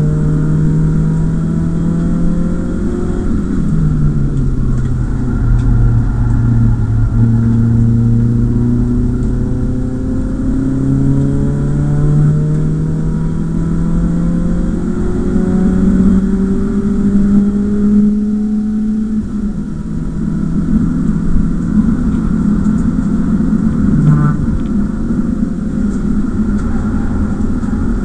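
BMW E36 318is four-cylinder engine heard from inside the cabin while being driven hard on track, its revs climbing and falling with acceleration, lifts and gear changes over tyre and road noise. The revs drop a few seconds in, climb for a long pull, then fall away near the end.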